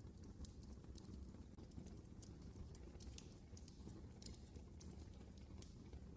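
Fire burning in a fireplace, crackling with frequent irregular sharp pops over a faint low steady rumble.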